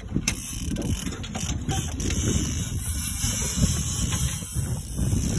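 Fishing reel being cranked hard against a hooked fish, its gears and clicker making a run of rapid mechanical clicks. Under it is a steady low rumble of wind and sea.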